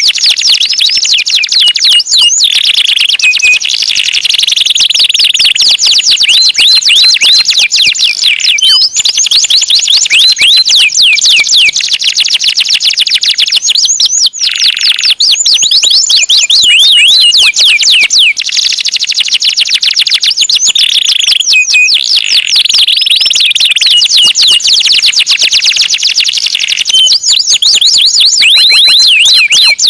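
Domestic canary singing continuously and loudly: long runs of rapid repeated chirping notes, several a second, alternating with dense rolling trills. There is a brief break about fourteen seconds in.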